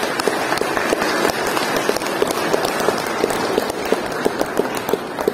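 A church congregation applauding, many hands clapping steadily.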